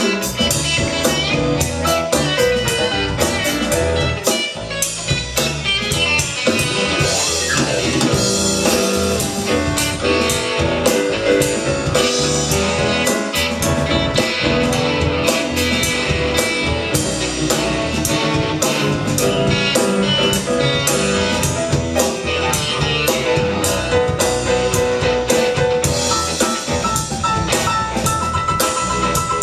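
A live band playing an instrumental stretch of a blues and R&B number, with guitar over a steady drum kit.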